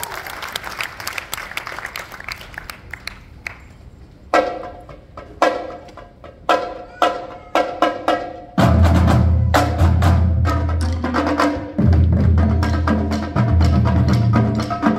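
Middle-school marching drumline of snare, tenor and bass drums playing. Faint light taps come first, then spaced ringing accents from about four seconds in. Just past halfway the full line enters loud, with a dense rhythm over low bass drums.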